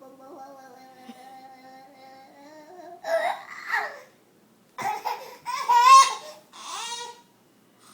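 A voice holds one long steady tone for about three seconds, then comes a baby's loud, high squeals of laughter and babbling in several bursts.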